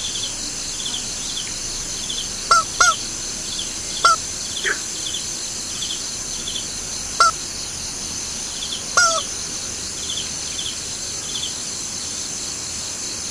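A steady, high-pitched chorus of night insects such as crickets, with a regular chirp about twice a second. Six short animal calls, each rising then falling in pitch, stand out at uneven intervals and are the loudest sounds.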